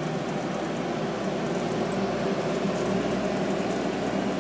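Aegis Scientific lab refrigerator/freezer running, its compressor and fans giving a steady mechanical hum with several low tones.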